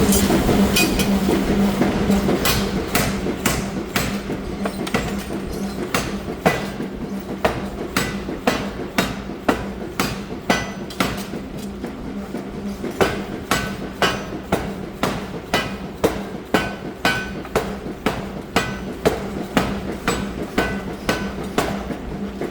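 Hammer blows on red-hot steel at a forge, evenly paced at about two a second, some strikes with a ringing note, over a steady machine hum. A louder rumbling noise fills the first couple of seconds before the strikes begin.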